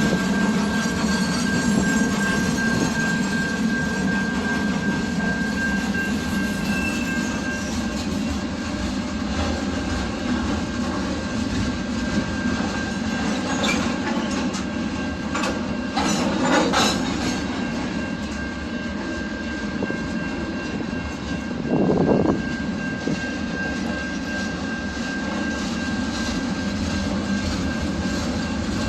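A train rolling past on the tracks: a steady rumble with a thin, high, steady whine over it that drops out for several seconds in the middle. A brief louder sound stands out about three-quarters of the way through.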